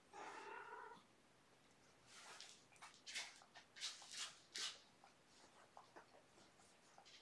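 A cat gives one short meow, then a run of short, faint scratchy rustles as a kitten plays with a toy on the carpet.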